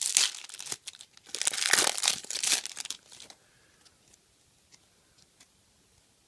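Crinkly wrapper of a football trading-card pack being torn open and crumpled by hand: a dense run of crackling and tearing for about three seconds, then only a few faint ticks.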